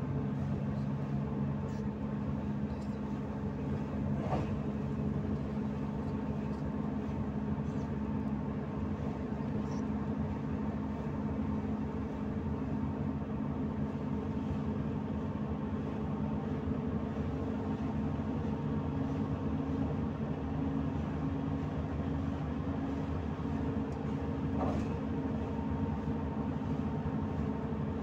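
Cabin noise inside a Volgabus-5270.GH city bus on the move: a steady engine and drivetrain hum with road noise. A couple of faint knocks come through, one near the start and one near the end.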